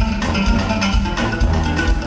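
Live band music over a concert sound system, with a steady beat of deep drum hits about twice a second under pitched instruments and percussion.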